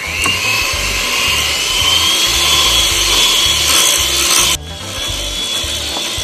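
Electric hand mixer whipping chocolate buttercream in a glass bowl. The motor spins up with a rising whine, then runs steadily with the beaters churning through the cream. About four and a half seconds in it drops quieter and keeps running.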